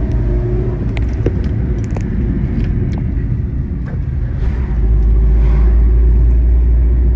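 A car on the move: a steady low rumble of engine and road noise, growing louder about five seconds in, with a few faint clicks.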